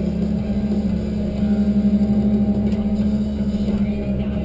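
Tigercat 1075B forwarder's diesel engine running steadily under crane load, heard from inside the cab, a deep drone that rises a little about a second and a half in as the hydraulic crane works the grapple.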